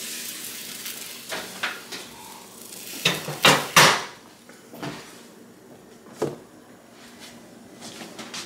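Baking pans and dishes clattering and knocking as they are taken from the oven and set down on the stovetop grates, a few scattered knocks with the loudest cluster about three to four seconds in.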